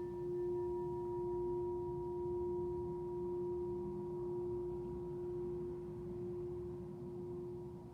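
Tibetan singing bowl ringing on after a strike: one strong steady tone with fainter higher overtones, slowly fading and wavering gently in loudness about once a second.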